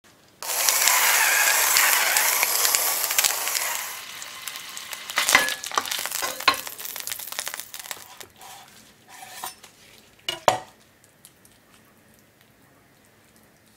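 A block of beef sizzling loudly as it sears in lard in a frying pan; the sizzle drops away about four seconds in. Several sharp clicks and knocks of tongs against the pan follow, the loudest about ten seconds in.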